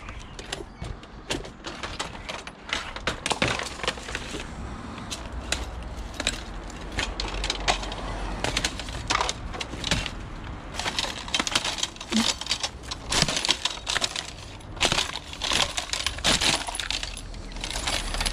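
Metal rack frame rattling and clanking as it is gripped, shifted and carried, with many irregular sharp clinks and knocks that grow busier and louder in the second half.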